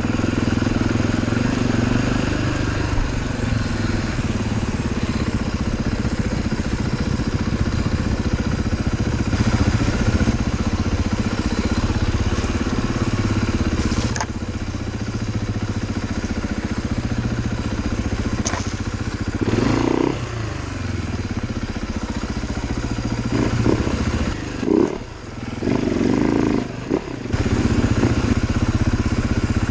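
Trail motorcycle engine running under shifting throttle over rough ground, with a few sharp knocks from the trail. The engine drops off briefly twice near the end.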